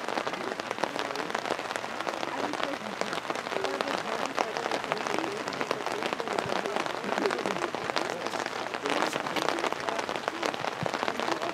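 Steady rain pattering, a dense hiss of many small drop hits, with faint distant voices underneath.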